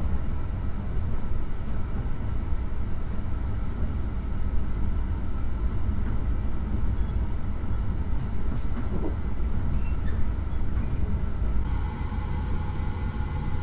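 Cabin noise inside an Akita Shinkansen Komachi train running at speed: a steady low rumble of wheels on rails. Near the end the sound changes abruptly to a different steady running noise with a hum added.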